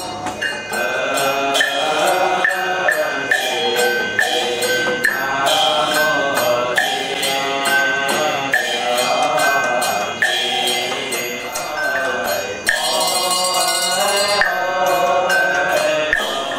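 Group Buddhist liturgical chanting of a mantra-like melody, kept in time by steady percussion strokes about twice a second.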